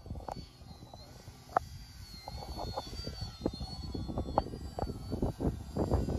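Multiplex Tommy Jr. radio-controlled model biplane flying high overhead, its motor a faint high whine that wavers up and down in pitch. Wind buffets the microphone with irregular rumbles and knocks, growing louder near the end.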